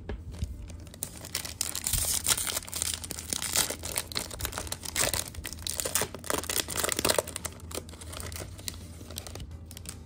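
The metallised plastic wrapper of a 2023 Topps Series 2 baseball card pack being torn open and crinkled by hand: a dense run of crackles and rips, heaviest in the middle and thinning near the end.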